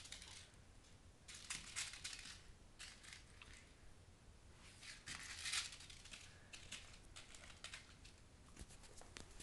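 Faint scratching and scrabbling of kittens' claws and paws on a hard floor as they play, in short scratchy bursts, the loudest about five and a half seconds in.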